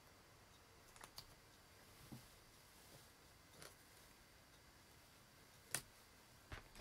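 A few faint, scattered clicks and taps from a plastic set square and pencils being handled on a desk; the sharpest click comes late.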